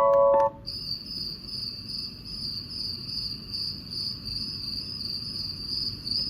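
Douni white noise machine playing its cricket nature sound: a steady, finely pulsing high cricket chirr. It starts about half a second in, as a music-box lullaby tune cuts off.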